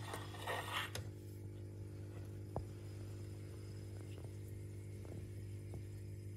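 A steady, faint electrical hum, with a short rushing noise about half a second in and a few faint clicks later.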